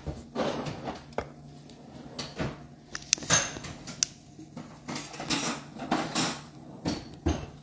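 Kitchen pots, pans and utensils being handled: irregular clinks, knocks and rattles, over a faint steady low hum.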